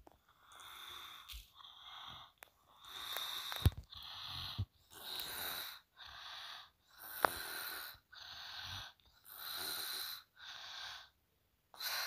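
A person breathing audibly close to a phone microphone: about ten short in-and-out puffs of breath, one after another, with a couple of sharp clicks.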